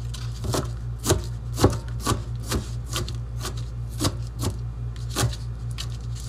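Chef's knife chopping onion on a paper plate over a countertop: about a dozen sharp chops, roughly two a second and unevenly spaced, over a steady low hum.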